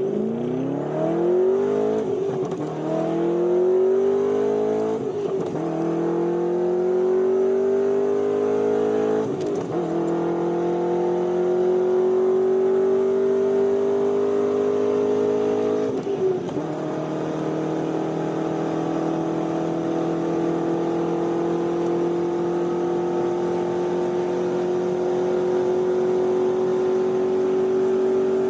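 Corvette Z06 V8 at full throttle, pulling hard through the gears. Its note climbs in each gear and drops sharply at four upshifts, the last about sixteen seconds in. It then rises slowly and steadily in top gear as the car nears top speed.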